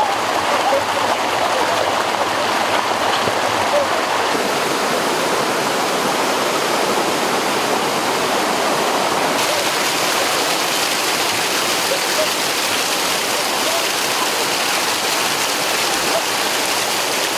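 Water rushing down a rocky waterfall and stream cascade, a steady loud rush that shifts slightly in tone about four and nine seconds in.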